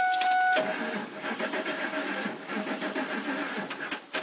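A short steady beep, then the 2004 Lincoln Navigator's starter cranking the engine for about three and a half seconds without it catching, ending in a click. The engine is not starting, which the owners put down to a dead fuel pump.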